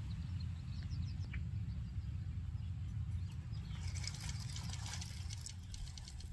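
Marbles rolling down a wooden marble run, a steady low rumble with light clicks, and a dense patter of clacks about four to five seconds in.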